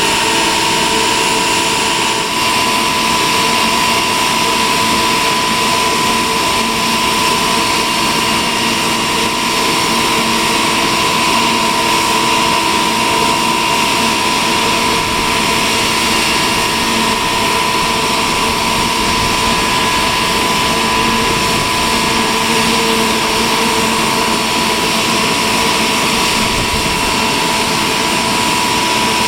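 Boeing 777-200ER's turbofan jet engines running steadily: a continuous high whine over a broad rushing noise, holding one pitch.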